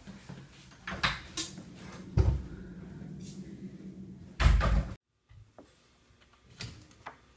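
A chair knocked and pushed in at a table, with footsteps and knocks, and two heavy thumps of a door being shut, the loudest about four and a half seconds in; after it, near silence.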